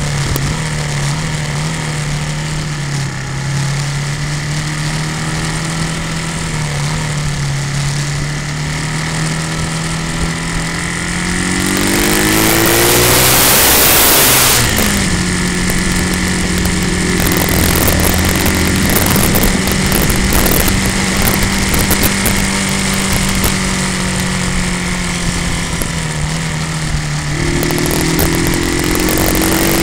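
Motorcycle engine running under load on an uphill climb, its note steady and then rising about a third of the way in. A loud rushing noise swells over it for a few seconds and cuts off abruptly, and the engine pitch rises again near the end.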